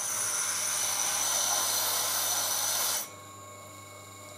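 Dressing block held against the slowly turning wet grindstone of a Tormek T7 sharpener: a steady, high-pitched grinding hiss that stops sharply about three seconds in when the block is lifted off. This dresses the stone fine, to about 1,000 grit, for the final grinding stage.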